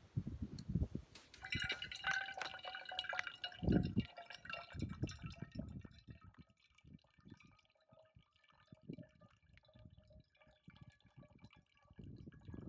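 Water trickling from a plastic bottle through a screw-on filter into a stainless steel cup. It starts as a steady stream about a second and a half in and thins to scattered drips after about six seconds. There is one low thump about four seconds in.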